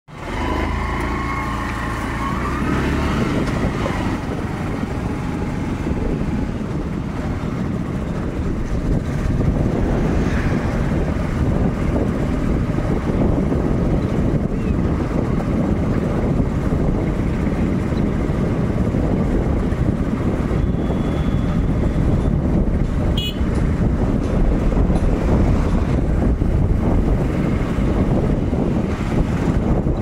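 Steady low rumble of road traffic passing on the bridge, with a rising engine tone in the first few seconds and a brief sharp high sound about 23 seconds in.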